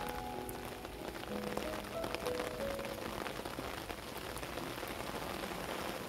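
Steady rain falling, with many individual drops ticking close to the microphone. Soft background music with a few held notes sits underneath.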